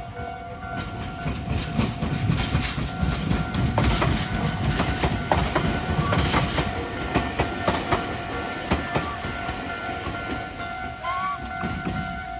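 A train passing over a railway level crossing, its wheels clacking over the rail joints, loudest from about two seconds in until about nine seconds in. The crossing's warning bell rings steadily over it.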